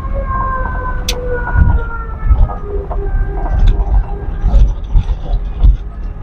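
A car being driven: a steady mechanical whine that drifts slowly in pitch, over low rumbling with irregular thumps.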